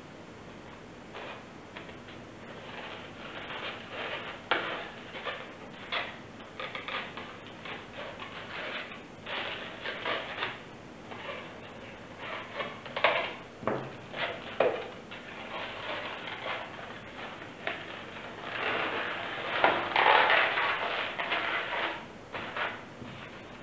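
Latex 160 modelling balloons being twisted and pressed together by hand: irregular squeaks and creaks of rubber rubbing on rubber, densest and loudest near the end.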